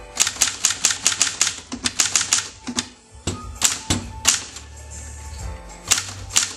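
Hermes Ambassador manual typewriter being typed on: sharp keystrokes striking the platen in quick runs of several at a time, separated by short pauses.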